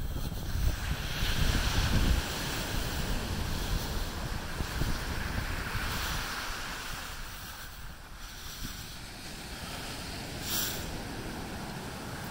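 Ocean surf breaking and washing on the shore in repeated surges, with wind buffeting the microphone, heaviest in the first two seconds.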